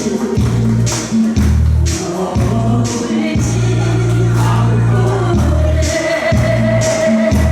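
Korean trot song performed live: a singer over band accompaniment with a steady drum beat and bass, and a long held note near the end.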